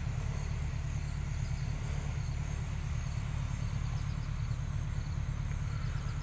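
Steady low outdoor rumble with a faint hiss over it, and no distinct event.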